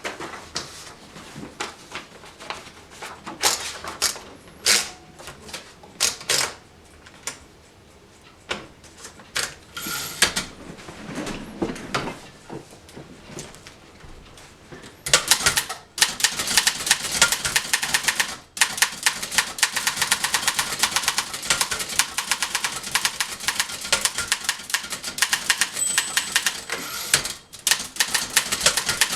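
Keys of a 1911 Continental Standard manual typewriter striking the platen: scattered keystrokes with pauses at first, then, from about halfway through, fast continuous typing with many clacks a second.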